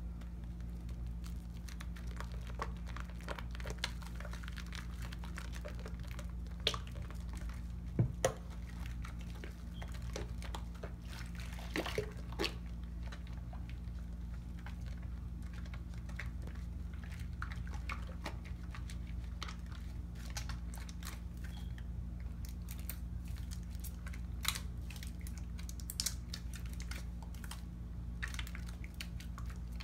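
Wet squishing and crackling of lather as hands work a bar of Tone cocoa butter soap and its foam, with scattered soft clicks and pops and a steady low hum underneath.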